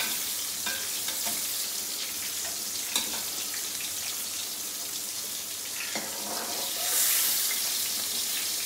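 Tinda (round gourd) pieces frying in hot oil in an aluminium karahi: a steady sizzle that swells around seven seconds in. A few clicks of a slotted spoon against the pan as the pieces are lifted out.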